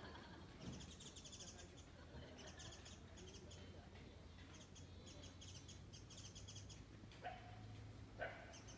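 A small bird singing faint, rapid high trills in repeated short bursts. Near the end come two short, louder sounds.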